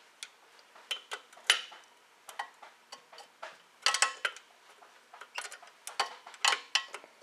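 Hand tool working the carburetor mounting bolts on a snowblower engine: sharp metallic clicks, irregular, with quick runs of clicks about four seconds in and again near the end, like a ratchet turning bolts in short strokes.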